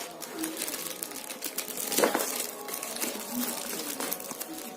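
Cardboard box packaging being handled and opened: rustling, scraping and small clicks, with one louder knock about two seconds in.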